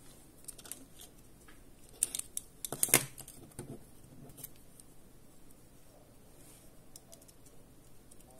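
Small plastic clicks and scrapes of a USB OTG card reader and flash drive being handled and pulled apart, with a quick cluster of sharper clicks about two to three seconds in and a few lighter ticks after.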